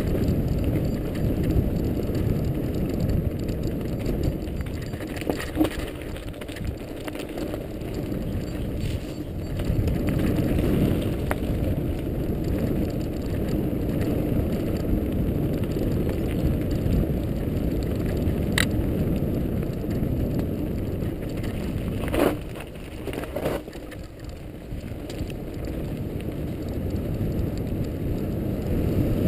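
Mountain bike rolling fast down a loose gravel trail: the tyres rumble and crunch over stones and the bike rattles, heard muffled. A few sharp knocks from bumps, the loudest about 22 seconds in, after which it runs quieter for a couple of seconds.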